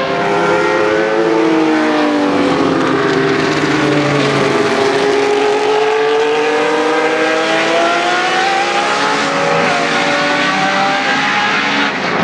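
Several historic Formula 1 race car engines running at high revs as a group of cars goes by. Their notes drop as they pass, then climb together as they accelerate away.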